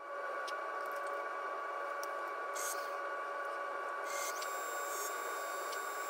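Laguna Revo 15/24 wood lathe running steadily, a hum with a fixed high whine, spinning a pawn blank. Two brief scrapes come about halfway and two-thirds of the way through, as a pencil marks layout lines on the turning wood.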